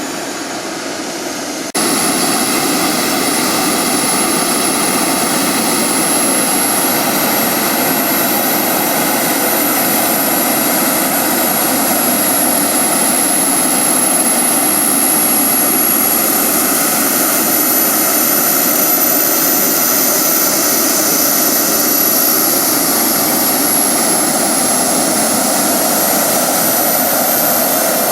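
Twin JetCat P80 model turbojets of a radio-controlled Airbus A330 running, a steady jet roar with a thin high-pitched turbine whine. The sound jumps abruptly louder about two seconds in, and the whine's pitch sags near the end.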